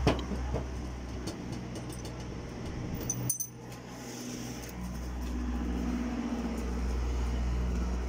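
Small metal parts clinking and rattling in a handheld parts case, with a sharp click at the start, over a steady low rumble. The rumble drops out for about a second a little past the middle.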